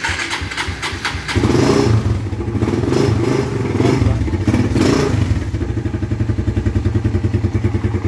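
Suzuki Raider 150 single-cylinder four-stroke motorcycle engine started on the electric starter. It cranks briefly, catches about a second and a half in, runs higher with a few surges, then settles into a steady idle. It starts normally, the kill switch having been set back to its run position.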